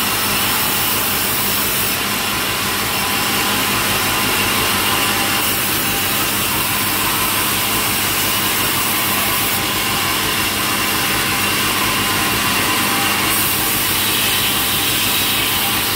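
Sawmill saw machine running steadily while cutting through a log, a loud continuous mechanical whine and hiss with a steady hum underneath.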